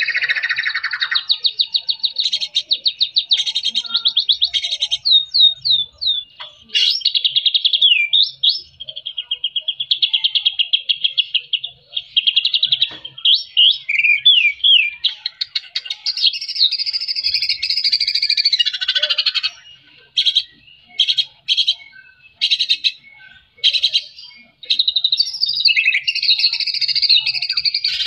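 White-rumped shama (murai batu) singing a long, varied song of fast rattling trills and rapidly repeated notes, mixed with quick slurred whistles. About twenty seconds in the song breaks into short separate phrases, then runs on again.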